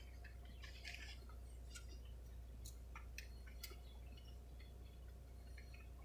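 Faint, scattered small clicks and crinkles of a plastic dipping-sauce cup being handled and its lid peeled open, over a low steady hum.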